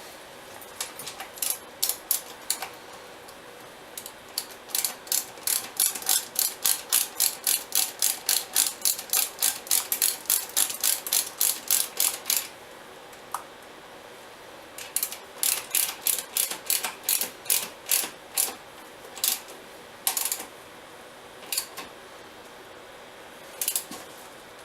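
Socket ratchet wrench clicking as a bolt is turned: a steady run of quick clicks at about three to four a second for several seconds, a pause, a shorter run, then a few single clicks near the end.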